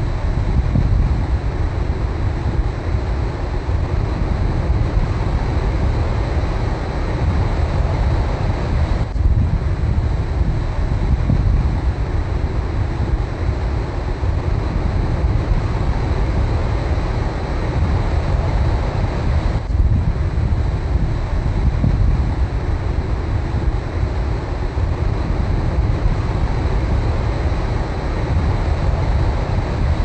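Ocean surf breaking and washing in over a shallow beach around a rock, a steady rushing noise with a heavy low rumble of wind buffeting the microphone.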